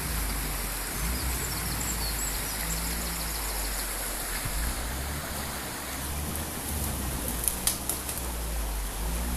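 Steady rushing of a shallow stream, over the low hum of a Land Rover Defender's engine crawling slowly up a slope. A couple of sharp handling clicks on the phone come near the end.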